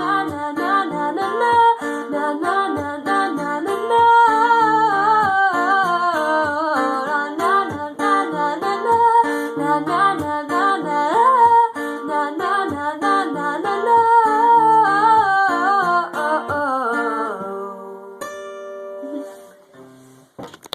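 Acoustic guitar strummed steadily under a woman's wordless sung melody, closing the song; the playing thins out after about 17 seconds and ends on one ringing chord. A short knock sounds right at the end.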